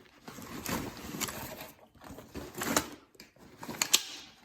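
Rustling handling noise, then two sharp clicks about a second apart in the second half.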